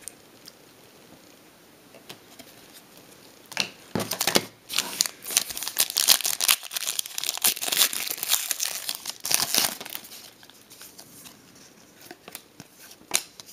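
A trading-card pack wrapper being torn open and crinkled for several seconds, beginning about three and a half seconds in, followed by a few light handling clicks.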